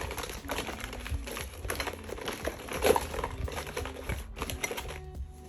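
Rustling, crinkling and light clicking of hair and beauty products being handled and packed into a bag, with a louder knock about three seconds in.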